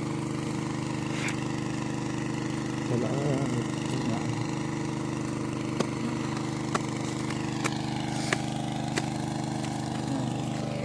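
An engine idling with a steady, even hum. A few sharp clicks come in the second half.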